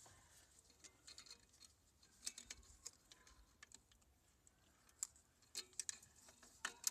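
Light, irregular clicks and taps of small parts being handled in a car's power steering pump reservoir, where a new filter is held down by a spring and retaining clip.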